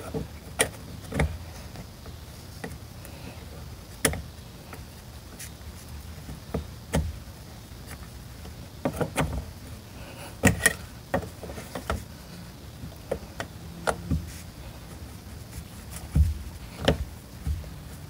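Irregular sharp clicks and taps of a small screwdriver prying at a plastic quick-release clip on a fuel line at the fuel pump cap, working the clip loose.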